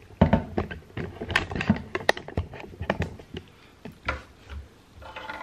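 Irregular run of sharp clicks and knocks from handling things at an under-sink cabinet: plastic toiletry bottles and containers being moved and the camera being handled and repositioned. The clicks come thick and fast at first and thin out after about four seconds.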